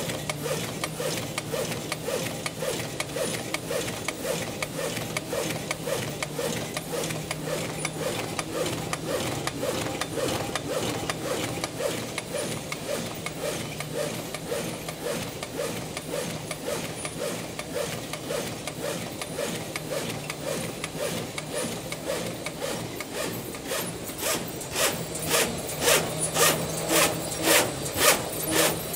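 Roll die cutting machine running, cutting corrugated paper cup sleeves: a steady hum under a fast, even rhythm of machine strokes. Near the end the strokes become louder and more distinct, about two a second.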